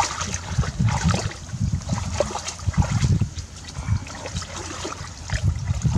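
Muddy water sloshing and splashing irregularly as hands grope through a shallow ditch, feeling for fish by hand.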